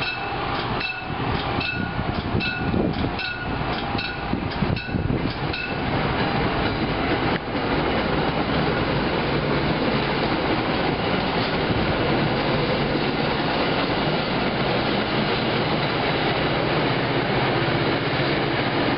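MBTA push-pull commuter train passing close by, its coaches rolling over the rails with a steady, loud noise. For the first six seconds a ringing ding repeats about three times a second over it.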